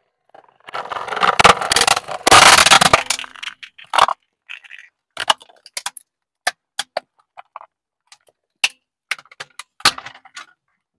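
A car tyre rolls onto a hollow plastic toy truck, which cracks and crunches loudly for about three seconds as it is crushed. After that come scattered sharp snaps and clicks of broken plastic pieces popping and falling.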